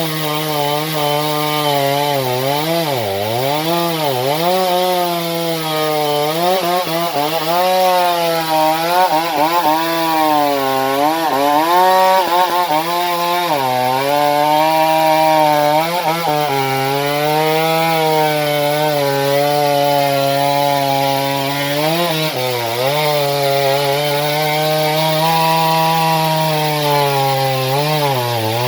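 Chainsaw cutting wood at high revs, its engine note sagging again and again as the chain bites and picking back up, with deeper drops about three seconds in and again around ten to fourteen seconds.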